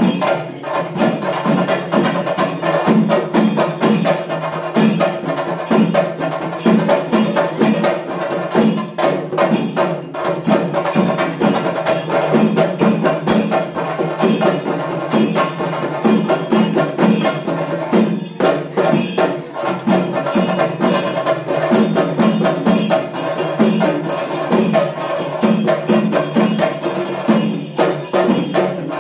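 Chenda drums played fast with sticks, dense rapid strokes over a recurring deeper beat, with a steady metallic ringing on top: the drumming that accompanies a Theyyam dance.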